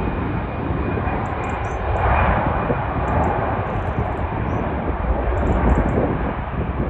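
Aircraft engines running steadily, with wind buffeting the microphone in a heavy low rumble.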